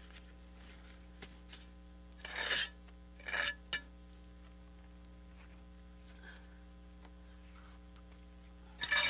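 Steel mason's trowel scraping wet mortar onto the edge of a brick as it is buttered: two short scrapes a couple of seconds in, a small click just after, and another scrape near the end.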